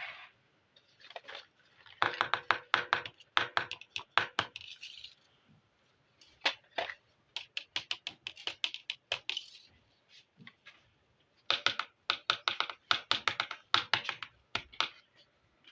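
Small plastic pieces of a miniature toy kitchen set clicking and tapping as they are handled, in three runs of rapid clicks with short pauses between.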